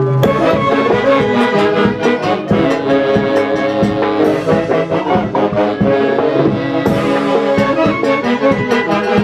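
Brass band music with a steady beat, horns playing a melody over drums.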